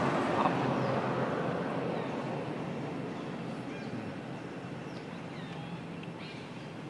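A passing vehicle's engine and road noise, fading steadily away, with faint bird chirps in the second half.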